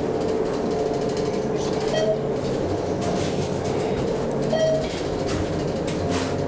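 ThyssenKrupp elevator car running, with a steady rumble and a faint tone that fades over the first two seconds. A short beep sounds twice, about two seconds and four and a half seconds in.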